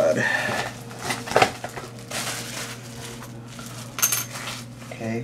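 Rustling and crinkling of a vinyl record's wrapping as it is handled and peeled open, with a few sharp clicks and taps.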